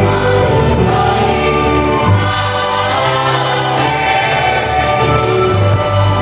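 A vocal group singing in multi-part harmony, holding sustained chords over a low bass part, with chord changes about every second.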